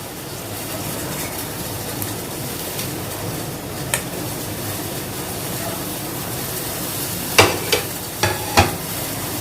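Pot of spiced herbal water (kadha) boiling, bubbling steadily. There is one tap about four seconds in and four sharp clinks near the end.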